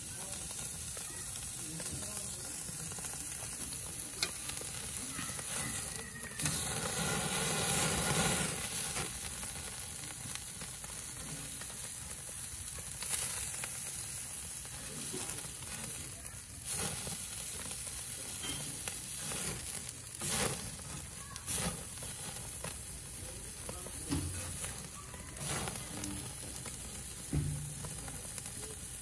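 Whole mackerel scad and a burger patty sizzling on a charcoal grill: a steady hiss, louder for a few seconds near the middle, with a few sharp crackles now and then.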